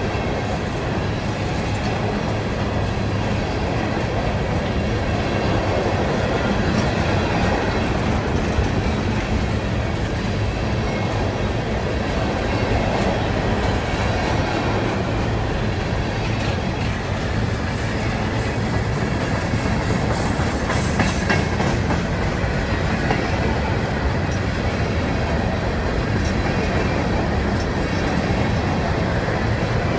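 Empty steel open-top hopper cars of a CSX rock train rolling steadily past, wheels clattering over the rails with a continuous low rumble.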